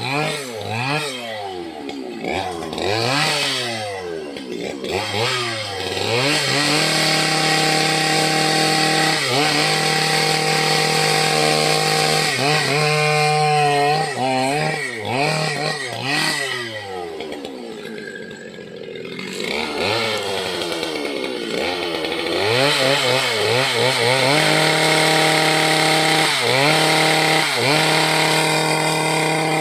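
Two-stroke petrol chainsaw blipped up and down several times, then held at full throttle for long steady stretches as it cuts into dry teak, with brief drops in revs between cuts.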